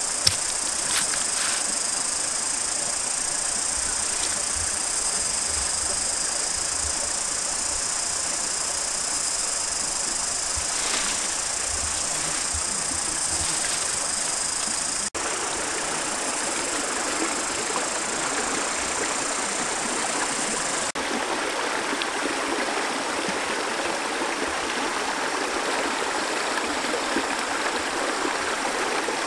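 Steady high-pitched insect drone in the forest, with a few light knocks. After an abrupt cut about halfway through, shallow stream water runs over rocks under the drone, and the insect sound grows fainter near the end.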